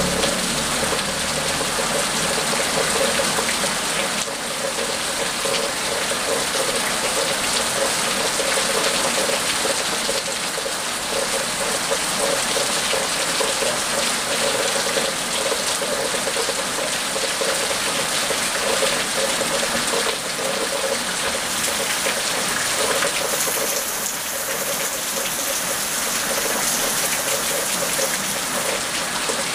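Steady rain falling and spattering on a wet paved surface, an even hiss without breaks.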